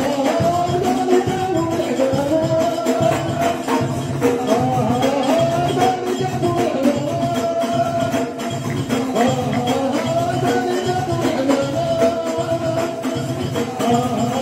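Ahwash ensemble performing: a group of men singing a chant over a steady beat of stick-struck frame drums and a jingling tambourine.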